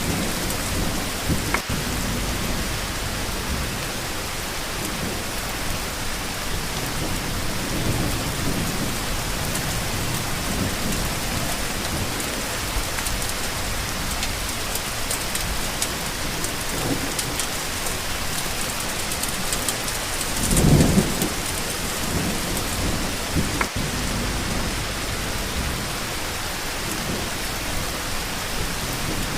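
Steady rain falling, with occasional low rumbles of thunder; the loudest rumble comes about two-thirds of the way through and lasts about a second.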